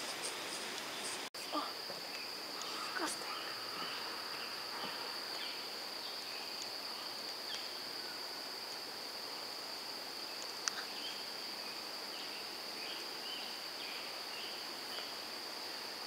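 A steady high-pitched insect drone over a constant outdoor rushing hiss, with short bird chirps scattered through. The sound drops out for a moment about a second in.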